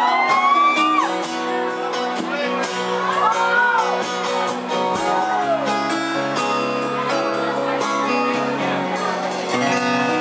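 Two acoustic guitars playing the closing instrumental bars of a country song, finger-picked. Over the first six seconds, a few rising-and-falling whoops from the audience.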